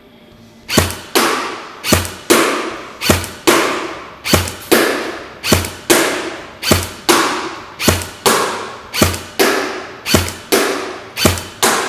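G&G CM16 Raider airsoft electric rifle firing single shots on semi-auto, about ten in all, roughly one a second. Each shot is followed about a third of a second later by a second sharp hit, the BB striking the paper target downrange, and both echo in the range.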